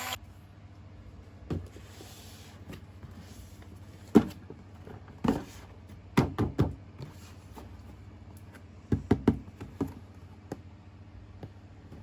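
Knocks and taps from handling a plastic toy and its packaging, a few single knocks and then two quick clusters of them, over a low steady hum.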